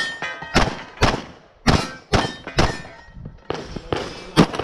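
Glock 34 9mm pistol firing a string of shots, about half a second apart with a couple of short pauses, some followed by the brief ring of steel targets being hit.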